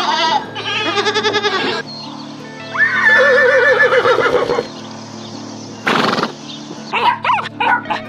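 Background music with animal calls laid over it: goats bleating several times over the first two seconds, a horse whinnying about three seconds in, a short noisy burst near six seconds, and puppies yelping near the end.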